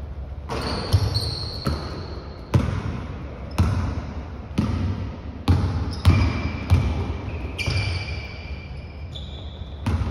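Basketball bouncing on a hardwood gym floor, about ten sharp thumps roughly a second apart, with sneakers squeaking on the boards during play.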